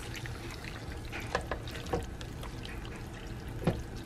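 Shredded chicken being stirred through a thin sauce in a slow cooker crock with a spatula: wet sloshing with a few sharp clicks, the loudest near the end.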